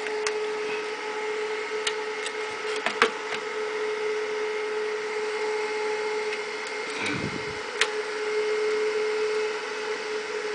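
The cooling fan of a 36-volt, 6-amp DC power supply running steadily: a constant hum over a rush of air. A few sharp clicks come from wire leads being handled at its output.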